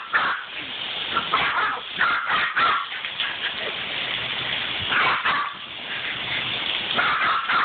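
A puppy barking in short, sharp yaps, in several bunches with brief gaps between them.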